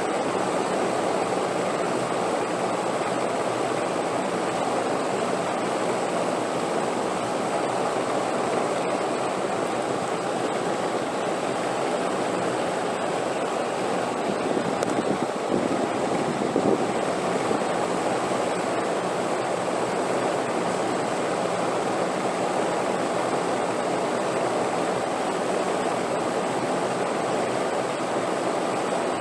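Steady wind noise: an even, low rushing hiss that barely changes, swelling slightly about halfway through.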